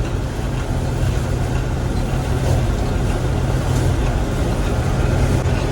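Gleaner M3 combine running steadily while harvesting wheat, heard from inside the cab: a constant low drone with an even rushing noise over it.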